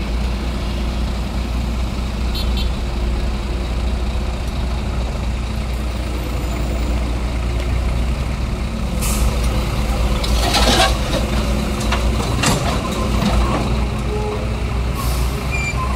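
Heavy crawler excavator's diesel engine running steadily under hydraulic load. About nine seconds in, a bucketload of red soil and broken asphalt is tipped into a steel dump truck bed, clattering and crashing for a few seconds, loudest near the middle of the dump.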